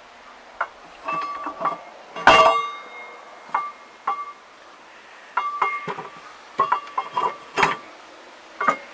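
Steel gears and parts of an MTZ-80 tractor's rear axle clinking and knocking against each other and the housing as they are handled, each knock ringing briefly. The loudest, longest-ringing knock comes a little over two seconds in.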